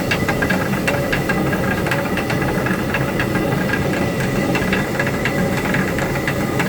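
Traditional water-powered stone mill grinding rice: the millstone rumbles steadily under a rapid, uneven clatter of wooden knocks and rattles.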